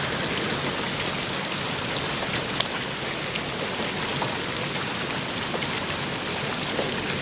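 Heavy rain and hail pelting down in a steady hiss, with a few sharper ticks of single hits scattered through it.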